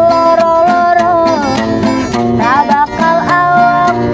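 A woman singing live, holding long wavering notes with sliding runs between them, accompanied by a small acoustic guitar.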